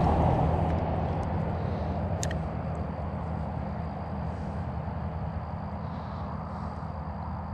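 Road traffic on the highway bridge above the creek: a steady low drone that slowly fades over several seconds. A single sharp click comes about two seconds in.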